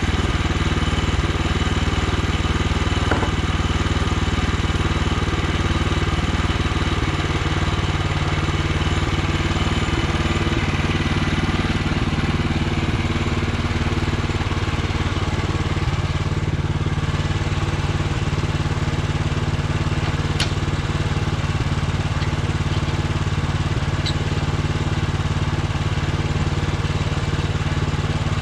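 Woodland Mills HM126 portable bandsaw mill with its gasoline engine running steadily, a few faint clicks over it.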